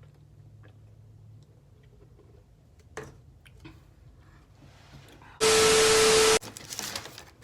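A loud burst of hiss, about a second long with a steady tone running through it, cuts in and out abruptly about five and a half seconds in. Right after it a paper food bag rustles and crinkles. Before the burst there are only a faint low hum and a few small clicks.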